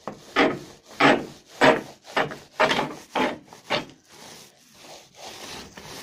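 A flat roller run back and forth over foil-faced foam insulation, pressing it flat into the gypsum mounting adhesive on the wall: seven rasping, rubbing strokes about two a second, then softer rubbing from about four seconds in.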